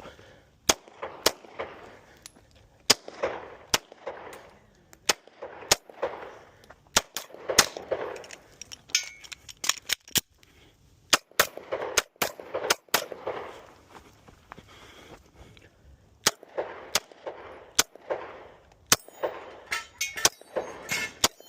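A 9mm Glock 17 Gen 3 pistol fired in rapid pairs and short strings throughout a USPSA stage, with brief pauses between groups and a quick string of shots near the end.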